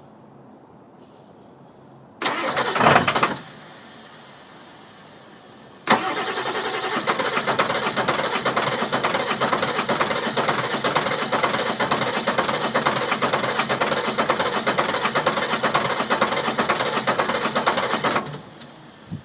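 Start attempts on a car with a no-start problem: a short burst of engine cranking about two seconds in, then a long stretch of about twelve seconds with a fast, even pulse that stops suddenly near the end.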